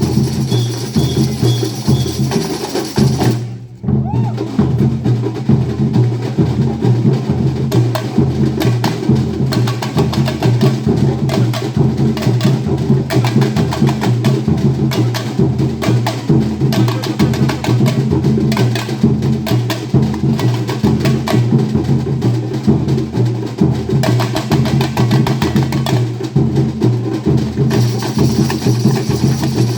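Instrumental worship music with a steady, driving percussion beat and bass, briefly dropping out about four seconds in before carrying on.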